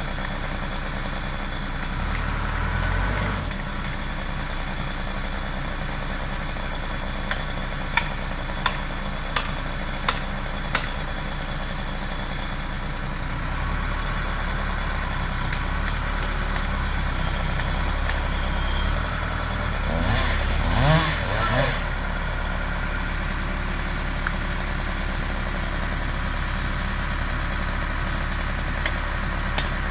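An engine idling steadily, with a handful of sharp knocks a few seconds apart about a third of the way in and a brief louder stretch about two-thirds of the way through.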